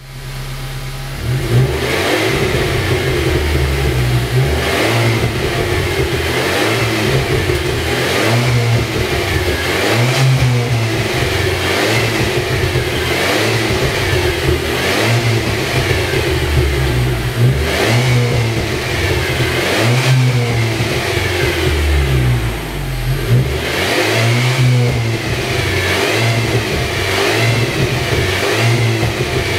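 Renault Clio 4 R.S 200 EDC's 1.6-litre turbo four-cylinder, revved again and again through its exhaust, each rev rising and falling with the engine running between them.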